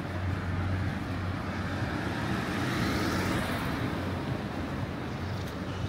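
A car driving past on the street, its tyre and engine noise swelling to a peak about halfway through and then fading, over a steady low traffic rumble.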